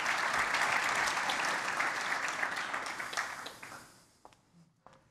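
Audience applauding, fading out about three and a half seconds in, followed by a few faint knocks.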